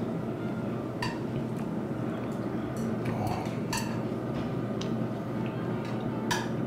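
Scattered light clinks of dishes and metal chopsticks at a dining counter, about seven in all, the loudest near the end, over a steady low background hum.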